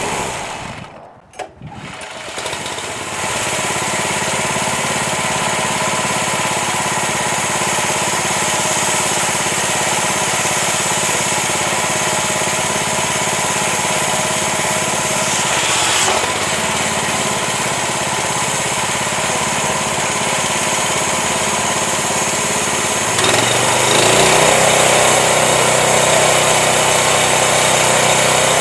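Home-built Crosswood Model #28 band sawmill running steadily. The sound drops out briefly near the start. About 23 s in it grows a little louder and fuller in the low end.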